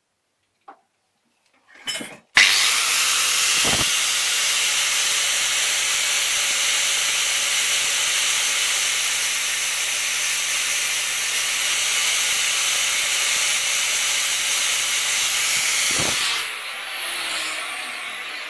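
Power grinder with an abrasive cut-off disc cutting through a small steel screw, throwing sparks. It starts suddenly about two seconds in, runs steadily, then winds down with falling pitch near the end.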